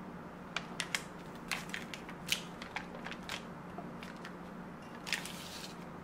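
Foil butter wrapper crinkling as a block of butter is cut into cubes with a kitchen knife: a scatter of short, sharp crackles, with a last cluster near the end.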